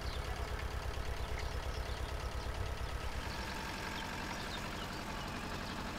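Old tractor's engine running steadily at low speed with a regular low throb, pulling a vegetable transplanter slowly along the row.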